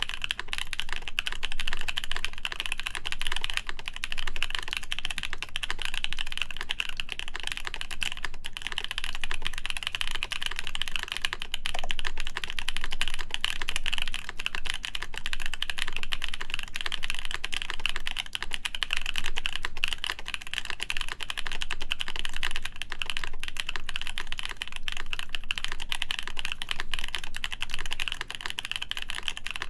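Fast, unbroken typing on a Haytco CAKE60 mechanical keyboard with lubed Epsilon switches, a full acrylic plate and GMK keycaps: a steady stream of keystrokes.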